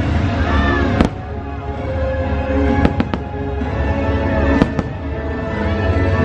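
Aerial fireworks bursting in sharp bangs: one about a second in, two close together around three seconds, and two more near five seconds. Show music plays steadily underneath.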